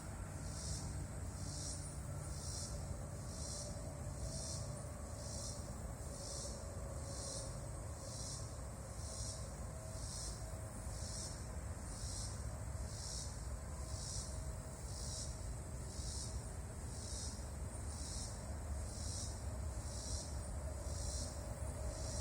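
A large insect calling: high-pitched buzzing pulses repeating evenly, about one and a half a second, over a low background rumble.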